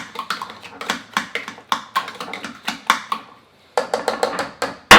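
A utensil clicking and knocking against a pot while working through mashed potatoes, about three to four sharp clicks a second. After a short break, one loud knock comes near the end.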